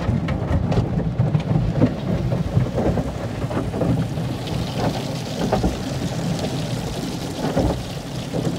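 Car wash water spray and foam pouring and drumming on a car's windshield and roof, heard from inside the car as a steady rain-like rush over a low rumble.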